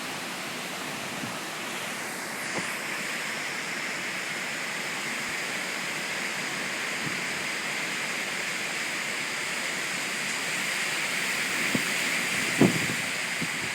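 Steady hiss of heavy hurricane rain and wind, with a couple of short knocks near the end.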